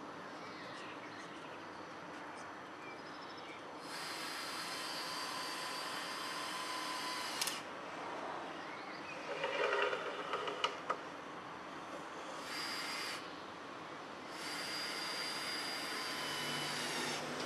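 Cordless drill-driver running in bursts while fastening wooden shingle panels: about three and a half seconds, then a short burst, then about three seconds, each starting and stopping abruptly. A few sharp knocks and clatter come between the first and second bursts.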